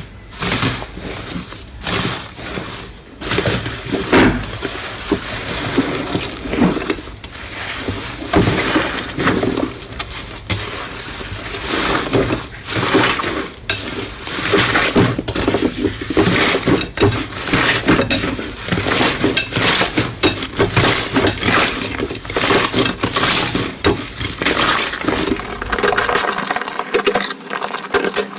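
Slime being squeezed and worked by hand, a dense, irregular run of crackles, pops and crunches. The low rumble underneath drops away near the end.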